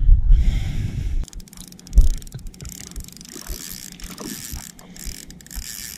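Spinning fishing reel clicking in a dense, rapid run while a hooked trout is being played. A loud low rumble on the microphone fills the first second, and there is a single thump about two seconds in.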